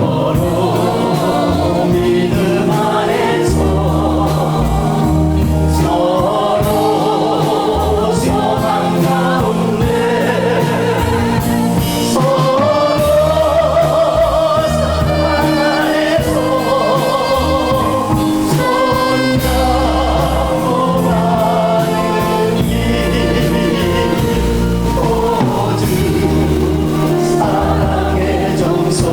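Gospel hymn sung by a choir over instrumental accompaniment with a bass line that moves in steps.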